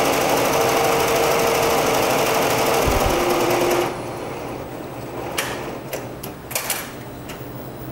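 Barudan multi-head commercial embroidery machine stitching at speed: a loud, steady machine chatter that drops in pitch as the machine slows, then stops abruptly about four seconds in as it finishes the design. A few sharp clicks follow over the next few seconds.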